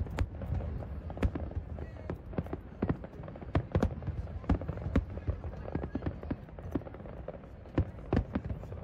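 Fireworks display: a quick, irregular run of bangs from bursting aerial shells, several a second, over a steady low rumble.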